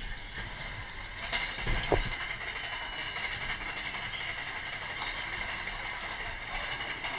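Roller coaster car being hauled up the lift hill by its chain, a steady mechanical rattle. A knock and a thump come about one and a half to two seconds in.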